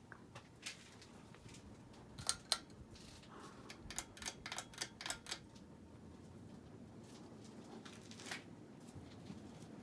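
Hunter Low Profile ceiling fan running faintly, with a series of sharp clicks over it: two about two seconds in, a quick run of about seven clicks in the middle, and one more near the end.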